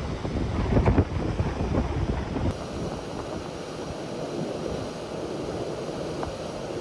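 Wind buffeting the microphone on the open deck of a ferry under way, in gusts for the first two seconds or so, then settling into a steadier rush of wind and sea.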